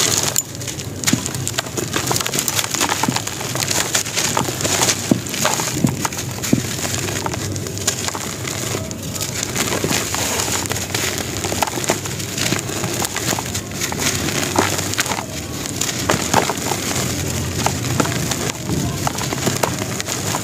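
Dry cement-and-sand chunks being crumbled and crushed by gloved hands. A dense gritty crackle of many small crunches, with a steady patter of falling grit and powder.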